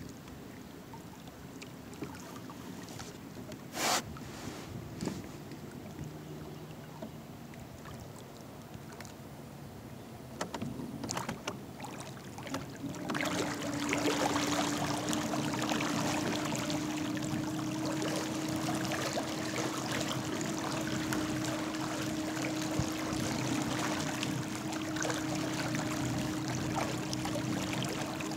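Small electric trolling motor, rated at 17 lb of thrust, driving a kayak, with water rushing past the hull. There is a sharp knock about four seconds in. About halfway through, the motor's hum steps up to a higher steady note and the water noise grows louder.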